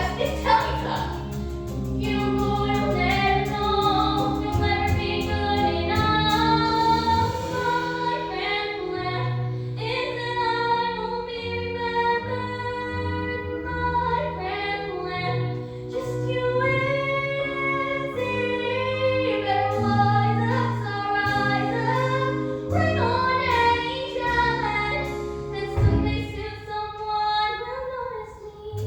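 A young teenage girl singing solo in a musical-theatre style, holding and sliding between notes over instrumental accompaniment.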